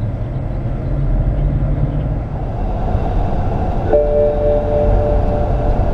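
BMW 645ci's V8 running with a steady low rumble. About four seconds in, a steady two-note tone switches on sharply and holds for about two seconds.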